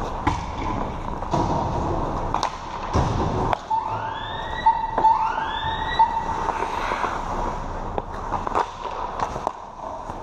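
Ice hockey play: skates scraping the ice and sticks and puck knocking, in short sharp hits throughout. About four seconds in, a siren-like tone comes in, rising in pitch twice before fading out.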